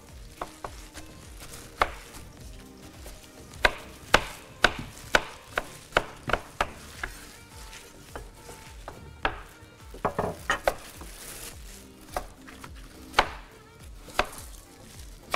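Kitchen knife chopping carrots on a cutting board: sharp, irregular knocks, one or two a second, with a quicker run of cuts about two-thirds of the way through.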